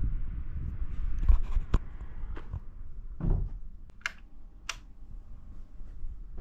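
A few scattered knocks and clicks of things being handled, with a duller thump about three seconds in and two sharp clicks near the two-thirds mark, over a low rumble that fades during the first two seconds.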